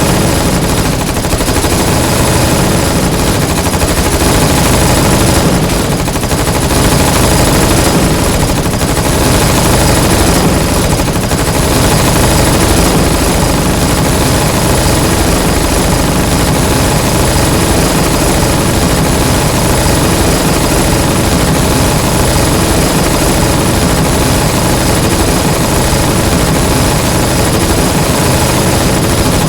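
Submachine guns firing on automatic, many at once, in an unbroken loud stream of rapid shots with no pauses.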